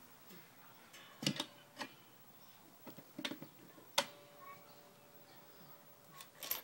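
Scattered metal clicks and clanks from a cat-and-mouse mechanical coin bank being worked. One sharp strike about four seconds in rings on for a couple of seconds.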